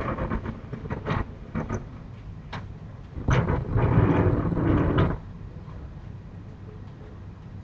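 Knocking and banging: a few separate knocks in the first couple of seconds, another about halfway, then a rapid rumbling clatter lasting about two seconds. A steady low hum follows.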